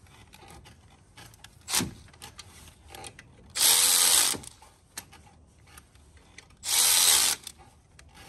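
Cordless power tool run in two short bursts, each under a second, about three seconds apart, after a single sharp click.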